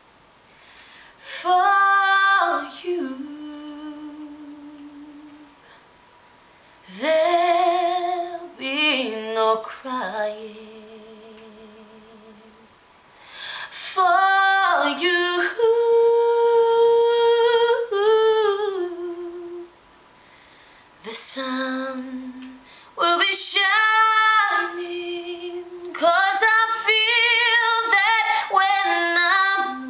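A woman singing slow phrases with long held notes and vibrato, separated by short pauses, in a small room.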